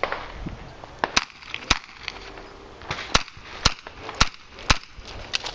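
Six handgun shots: a pair about half a second apart, then after a pause of about a second and a half, four more at an even pace of about two a second.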